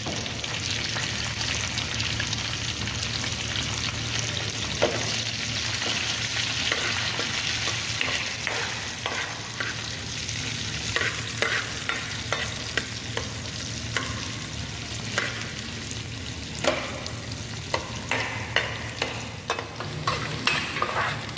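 Shallots, dried red chillies, curry leaves and mustard seeds sizzling in hot oil in a small pan, stirred with a metal spoon that scrapes and clicks against the pan. The clicks come more often in the second half.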